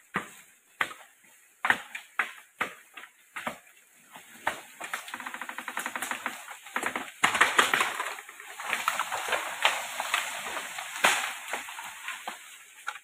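Bamboo being felled: a run of sharp chopping knocks on the culm, then a long, loud crackling rattle and rustle from about four seconds in as the cut stem tips and crashes down through the surrounding bamboo and leaves.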